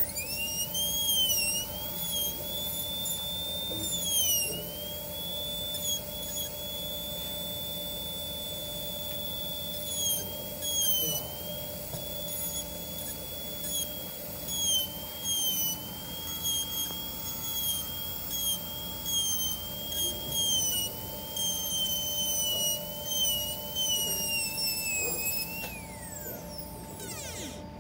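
High-speed dental air-turbine handpiece with a diamond bur whining at a high pitch, the pitch dipping briefly over and over as the bur cuts into the typodont abutment tooth to deepen the preparation. The whine winds down in a falling glide near the end.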